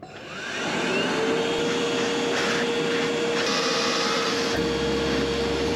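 Small electric motor spinning up, rising in pitch over about a second, then running steadily with a constant hum and a hiss.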